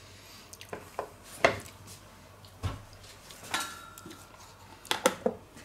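Scattered light knocks and clicks of kitchen handling: a silicone spatula scraping and tapping a plastic food container, and the container's plastic clip-on lid being picked up and handled over a wooden cutting board. The sharpest knock comes about one and a half seconds in, with a quick cluster of clicks near the end.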